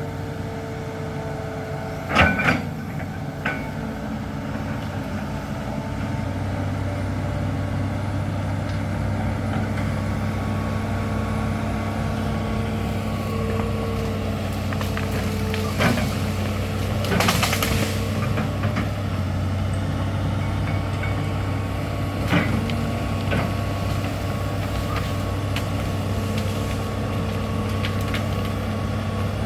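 A large hydraulic excavator's diesel engine running steadily while it works. The engine gets louder a few seconds in. Now and then there is a sharp knock or clank, and about halfway through there is a rushing noise lasting about a second.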